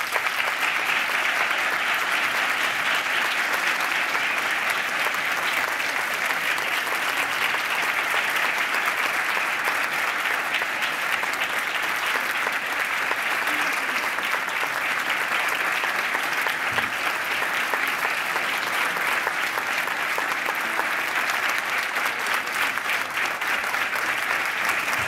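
Audience applause: dense, steady clapping that is kept up without a break.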